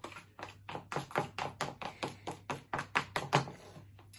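A stirring utensil knocking and scraping against the sides of a container while mixing a foamy slime mixture. It is a quick, irregular run of taps, about five a second.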